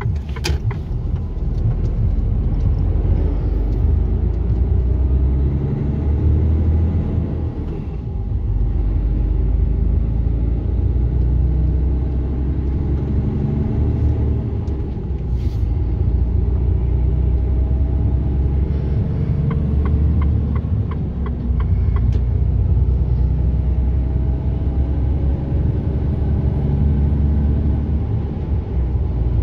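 Inside a truck's cab while it drives at road speed: a steady low rumble from the diesel engine and the tyres on the road.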